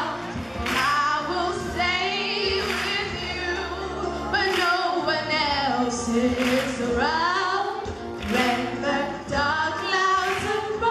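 Two girls singing a duet into handheld microphones over an instrumental backing track.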